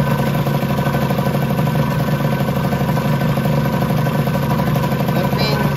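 Small two-stroke engine running steadily at a constant speed on a hydraulic-brake dyno, its note holding level without revving.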